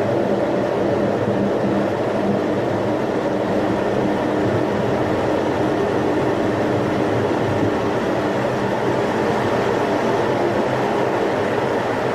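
Boeing T-X jet trainer's General Electric F404 turbofan and airflow heard inside the cockpit during the takeoff roll and liftoff: a steady drone with a few held tones.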